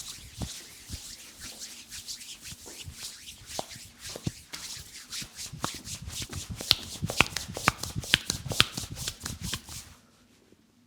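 Massage hands rubbing and slapping on bare skin: a quick, busy run of rubs and pats that builds into sharper, louder slaps in the second half, then stops suddenly near the end.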